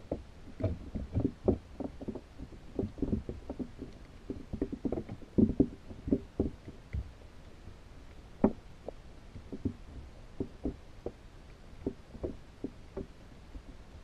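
Irregular muffled knocks and taps heard underwater through a GoPro's housing inside a pinfish trap, sometimes several a second. Louder knocks come about five and a half and eight and a half seconds in.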